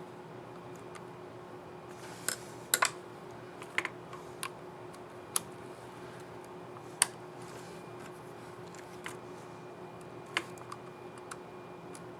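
Scattered sharp plastic clicks from a laptop keyboard key on an HP 15 BS234WM as its keycap and scissor mechanism are handled and clicked into place. About a dozen irregular clicks, the loudest a quick group about two to three seconds in and a single one about seven seconds in, over a steady faint hum.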